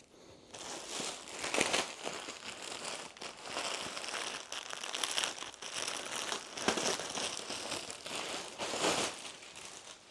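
Packaging crinkling and rustling in irregular handling as a garment is unwrapped from it.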